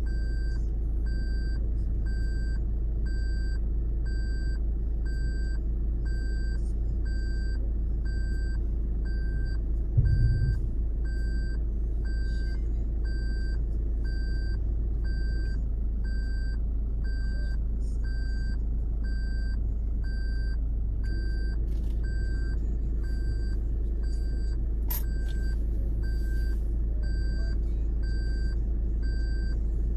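A vehicle's engine running with a steady low rumble while an electronic warning beeper, like a reversing alarm, sounds about twice a second without pause. There is a low thump about ten seconds in and a sharp click near the 25-second mark.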